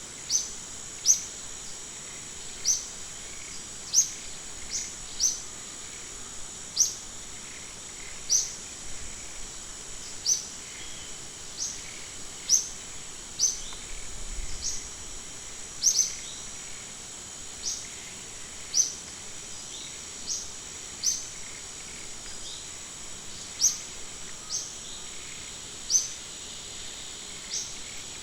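Short, sharp, high-pitched chirps repeating irregularly about once a second over a steady high insect drone.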